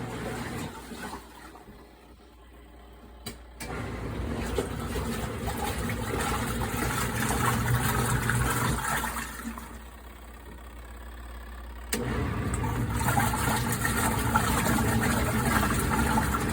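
Auertech portable twin-tub washing machine motor running, dropping away twice for a few seconds and coming back, sharply about twelve seconds in.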